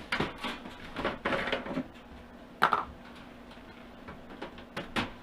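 Hard parts being handled and set down: a run of knocks and clattering in the first two seconds, a sharp knock about two and a half seconds in and another near the end.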